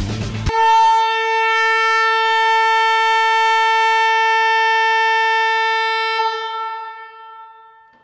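Kia Forte car horn sounding one long, steady blast after the music cuts off about half a second in, fading away near the end.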